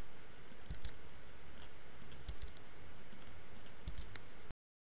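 Computer mouse and keyboard clicks, single and in quick pairs, over a low steady hum. The sound cuts off abruptly to dead silence shortly before the end.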